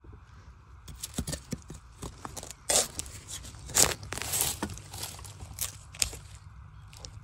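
A metal blade scraping and chopping into soil around a bamboo shoot to dig it out, in irregular strokes with a few sharper knocks.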